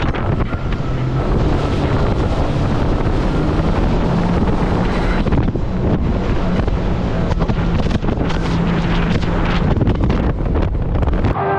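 Wind buffeting the microphone and water spray rushing off the hull of a Sea-Doo jet ski running at speed across open sea, with the engine's steady hum underneath.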